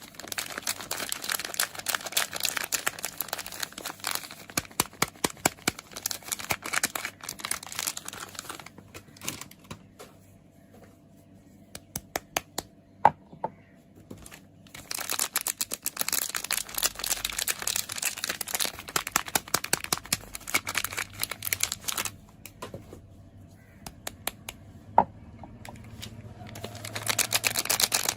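Soap packaging being unwrapped and crinkled by hand, in three long spells of dense crackling with quieter gaps of scattered small clicks, and a couple of sharp ticks in the gaps.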